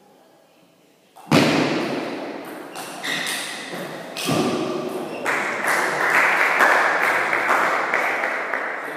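Spectators clapping and cheering at the end of a table tennis rally, starting with a sudden loud outburst about a second in and swelling into steady applause over the last few seconds.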